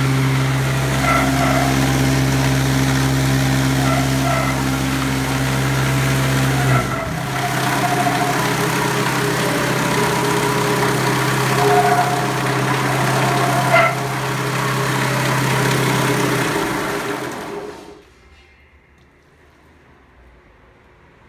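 Meat bowl cutter running, its knives chopping liver sausage batter in the turning bowl, a steady machine hum. Its sound changes about a third of the way in, and near the end it winds down and stops.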